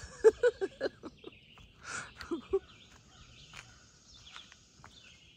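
Birds chirping faintly in the woods, with a quick run of about seven short pitched notes in the first second and two more a little after two seconds in.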